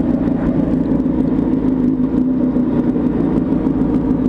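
Sport motorcycle engine with an aftermarket exhaust running at a steady, even pace under the rider, with no revving up or down.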